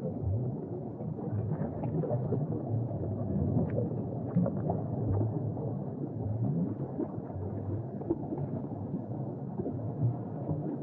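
Scuba regulator bubbles underwater: exhaled air burbling continuously, a dense, muffled low rumble with many small pops scattered through it.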